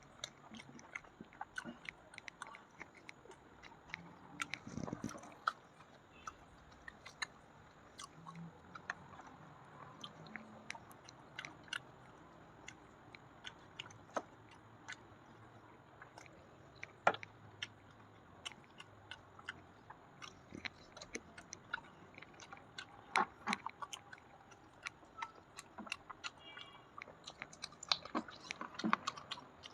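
A person chewing food close to the microphone, with irregular wet mouth clicks and lip smacks and a few louder bites.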